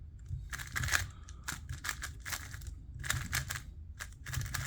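Celeritas Tornado V3 M magnetic 3x3 speedcube being turned fast: quick runs of plastic clicks and clacks as the layers snap round, in several short flurries with brief pauses between. The cube is new and not yet broken in, and turns very softly with almost no resistance.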